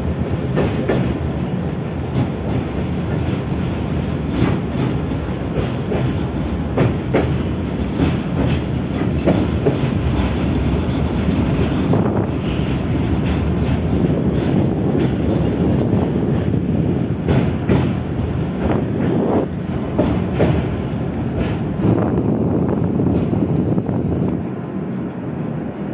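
Tatra T3SU tram running along its track, heard from inside the car: a steady rumble of steel wheels on rail, with irregular clacks and knocks over rail joints. It grows quieter near the end as the tram slows for a stop.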